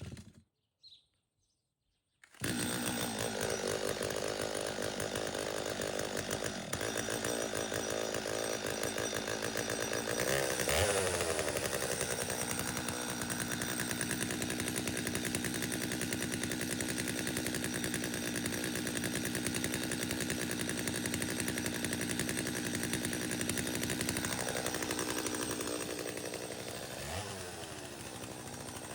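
Chainsaw coming in about two seconds in and running steadily while cutting branches off a dead kōwhai tree, its pitch swinging up and down as it is revved around the middle and again near the end.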